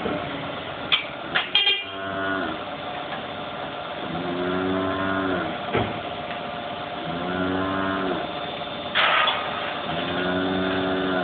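Dairy cattle mooing: about four long, low moos, one every three seconds or so. A few sharp knocks come about a second in, and a short noisy burst near the end.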